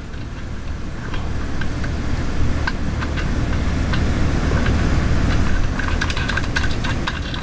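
Light metallic clicks and ticks of bolts and nuts being fitted to a motorized bicycle's engine mount, coming thicker in the last couple of seconds, over a steady low rumble that grows louder over the first few seconds.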